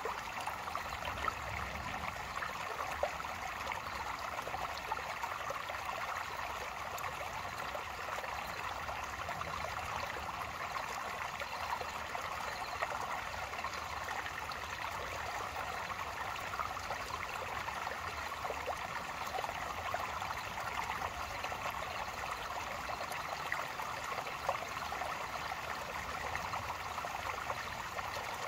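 Shallow, rocky creek trickling over shale stones: a steady, even babble of running water.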